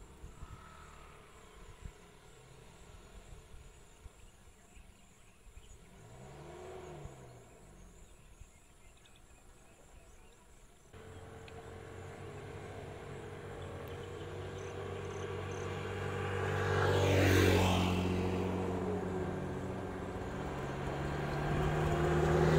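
Road vehicles passing: one goes by faintly about a quarter of the way in. About halfway through, an engine starts running steadily and growing louder, and a vehicle passes close by, loudest about three-quarters of the way in.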